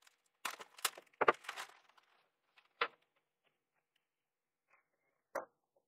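Scissors cutting open a thin plastic bag, with crackling and sharp clicks through the first two seconds. A couple of single light clicks follow as small electronic components are handled on a wooden desk.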